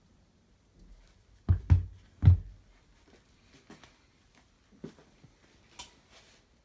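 Three heavy clunks close together, about one and a half to two and a half seconds in, then a few light clicks and taps. There is no steady motor sound.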